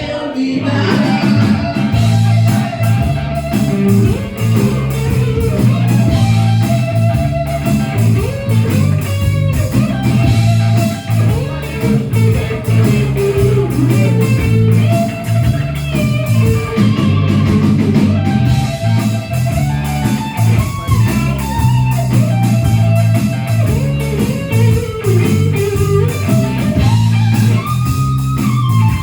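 Rock band playing live: electric guitar lines over bass guitar and a steady drum beat.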